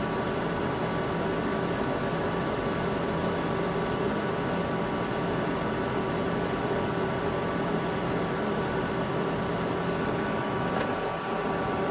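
Small 24-volt drum fan with a filter, used to draw off solder fumes, running steadily with an even hum. There is a faint click near the end.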